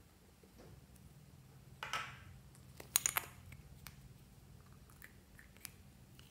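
Small plastic lip balm pot being handled and opened: a short scraping rustle about two seconds in, then a quick run of sharp plastic clicks about a second later, with a few faint ticks after.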